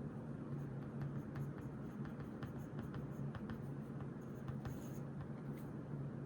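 Pen writing on notebook paper: short scratchy strokes and light ticks of the tip, over a steady low hum.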